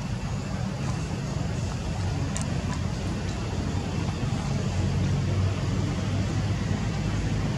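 Steady low rumble of outdoor background noise, with a brief faint click about two and a half seconds in.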